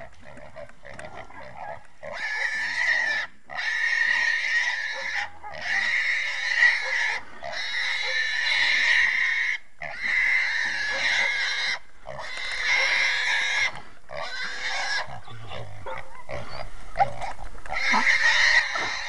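Young wild hog, a gilt, squealing over and over in long squeals of a second or two each, with short breaks between them, from about two seconds in.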